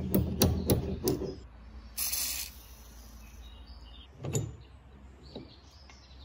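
Rapid hammer taps, about half a dozen sharp knocks, on the rusty iron ratchet and pawl of an antique wooden jack. Then a brief rasping scrape and a single clunk as the jack's lever is worked by hand.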